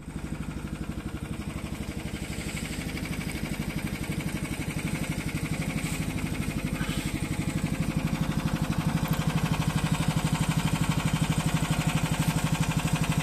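Karakat's engine running steadily with an even, rapid exhaust beat, growing slightly louder over the stretch.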